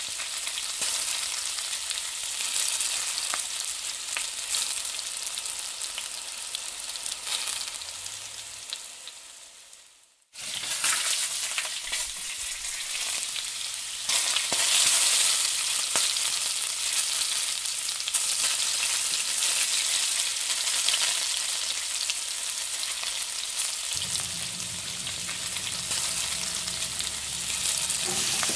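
Chopped onion and green chillies frying in butter in a nonstick pan, a steady sizzling hiss. It fades away and cuts off about ten seconds in, then starts again and grows louder a few seconds later, with a low hum joining in the last few seconds.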